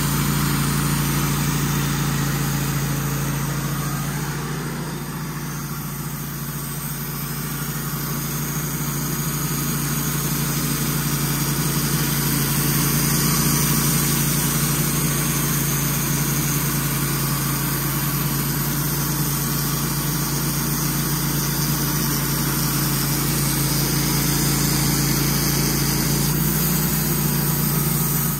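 Wood-Mizer portable band sawmill running under load, its engine driving the band blade through a large pine log in a slab cut. A steady engine tone with the hiss of the blade in the wood, dipping slightly in loudness a few seconds in and shifting a little near the end.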